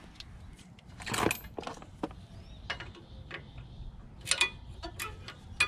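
Scattered metallic clicks, clinks and scraping as the old pad hardware clips are worked off a rear brake caliper bracket, with a louder scraping rattle about a second in and a quick cluster of clicks about four seconds in.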